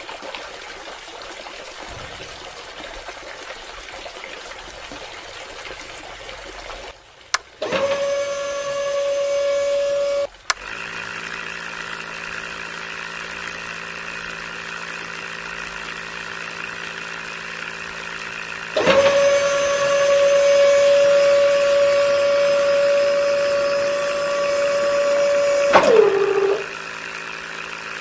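A small DC motor on a homemade toy drilling rig whines at a steady high pitch in two runs, the second one sliding down in pitch as the motor slows near the end. Between the runs there is a lower, steadier motor hum, and before the first run a steady hiss.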